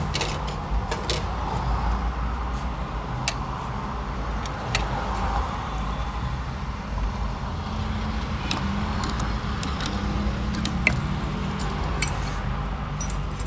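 Scattered metallic clicks and clinks of a pulley puller being worked to draw a car A/C compressor's pulley and its worn bearing off the shaft, over a steady low rumble.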